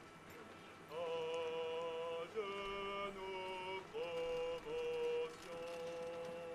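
A body of men's voices singing a slow military chant in long held notes. It starts about a second in, with about six sustained notes separated by short breaks and small scoops up in pitch at the starts of the notes.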